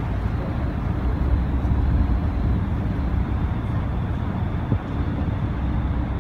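Passenger ferry's engines running with a steady low rumble under a constant wash of noise, heard from the open deck as the boat moves slowly at the landing.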